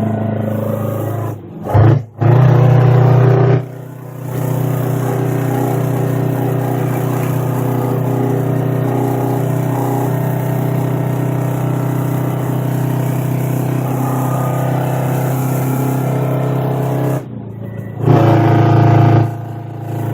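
Naturally aspirated 8V-71 Detroit Diesel two-stroke V8 with dual 5-inch straight pipes running loud and steady under load. The sound drops away briefly a few times, near the start, about four seconds in and again near the end, with louder stretches between.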